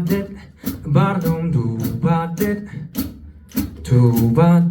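Live funk band playing a jam: drums hitting a steady, quick beat under bass and guitar lines.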